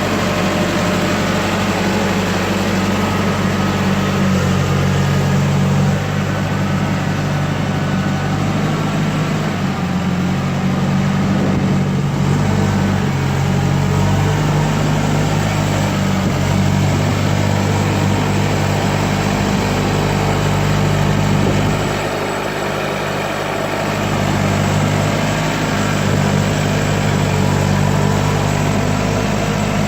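Case 650L crawler bulldozer's diesel engine running steadily, its pitch shifting slightly, with a brief dip in level about 22 seconds in.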